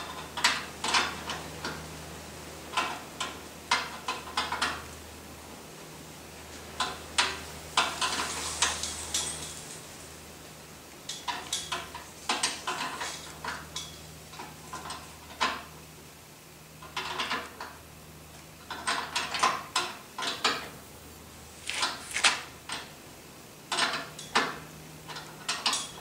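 Metal clicks and clinks from a 3/8 inch flare nut wrench being worked and repositioned on a brake hose fitting, tightening the hose to the hard line. They come in short clusters every second or two, over a faint steady low hum.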